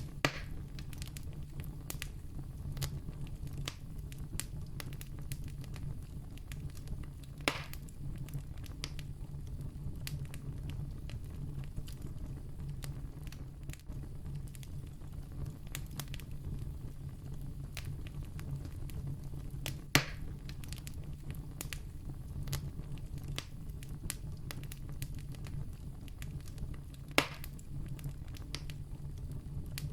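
Wood campfire burning: a steady low rush of flame with many small crackles, and four louder sharp pops spread through it.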